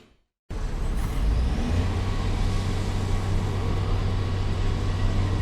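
A heavy engine of construction machinery running steadily with a deep, even hum, cutting in abruptly about half a second in.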